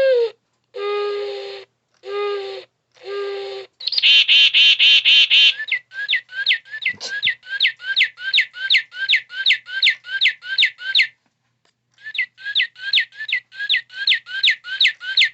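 Electronic birdsong from a bird clock's sound chip, retuned with added resistors to a pitch the owner calls perfect. It plays three low hooting notes, then a fast high trill, then a long run of falling chirps at about two to three a second, with a brief break about eleven seconds in.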